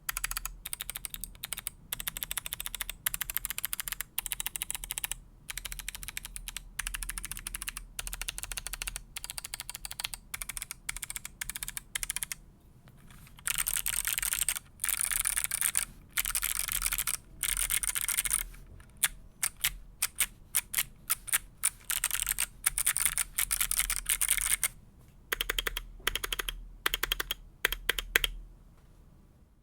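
Keychron Q6 mechanical keyboard with Kailh Box Navy clicky switches being typed on; each keypress gives a sharp, loud click. The typing comes in quick flurries with brief pauses, densest about halfway through, then in more separate presses near the end.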